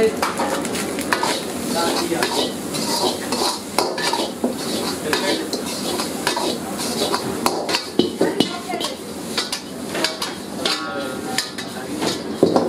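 Metal ladle clanking and scraping against a steel wok in quick, irregular strokes as fried rice is stirred and tossed over a gas flame, with the rice sizzling underneath.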